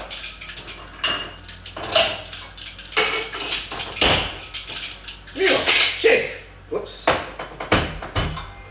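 Cocktail shaker with ice and a creamy Ramos Gin Fizz mix being shaken in uneven strokes, the ice clacking inside at irregular intervals. A voice is heard briefly in between.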